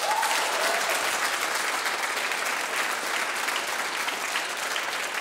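A large group of students applauding, a dense steady patter of many hands clapping.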